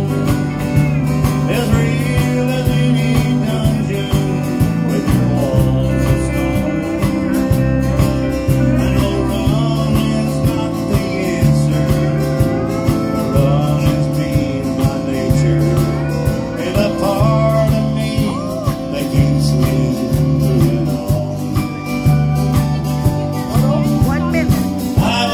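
Live country band playing an instrumental passage: acoustic guitar strumming and a drum kit keep a steady beat, with a pedal steel guitar's sliding notes over the top.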